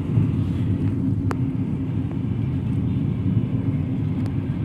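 Steady low rumble of engine and road noise inside the cabin of a Mahindra XUV300 while driving, with two faint clicks, one about a second in and one near the end.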